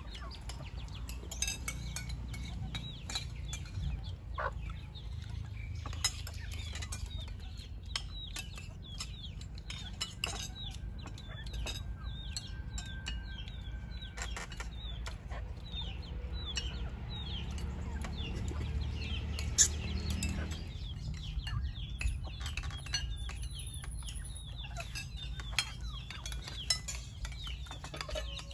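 Chickens clucking and chicks peeping in many quick falling chirps, with occasional sharp clinks of utensils against dishes.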